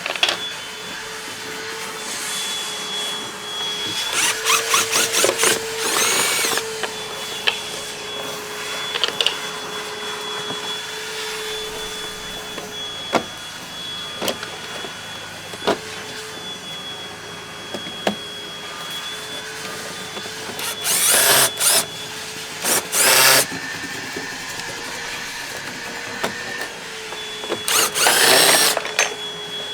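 Power drill-driver backing out a window frame's mounting screws: the motor whines at a steady speed, with several louder, shorter stretches where the pitch changes as the screws are driven out.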